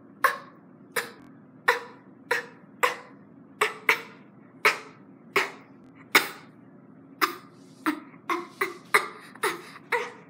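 A girl coughing over and over in a fit, short sharp coughs about one to two a second, with no break.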